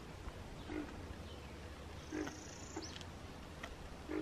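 Short, low grunting animal calls from the wetland, about four of them, each a second or so apart, over a steady low hum, with a brief high whine about halfway through.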